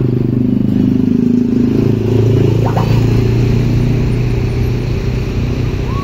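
Close passing road traffic: the low, steady engine of a tour bus pulling past, mixed with motorcycle engines going by.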